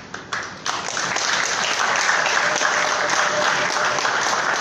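Audience applauding: a few scattered claps, then dense, steady applause from about half a second in.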